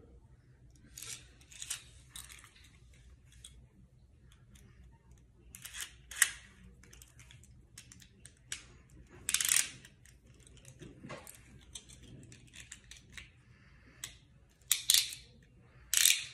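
Scattered clicks and rustles of objects being handled, with a few sharper, louder clicks near the middle and near the end.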